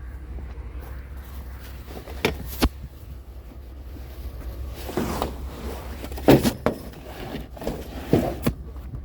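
Steady low vehicle rumble with several sharp knocks and clunks scattered through it, the loudest a little past the middle.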